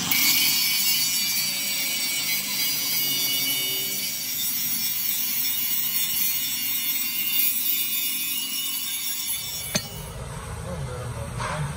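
Angle grinder with an abrasive disc grinding the welded edge of a steel plate: a steady, high-pitched grinding. It stops about ten seconds in, followed by a sharp click.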